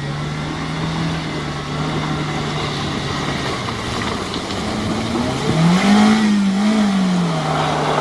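Off-road 4x4's engine running at a steady speed, revving up about halfway through, wavering twice and settling back down.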